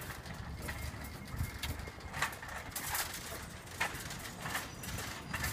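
Shopping cart rolling over a concrete sidewalk: a steady low rumble from the wheels, with irregular clacks and rattles from the cart's frame and basket.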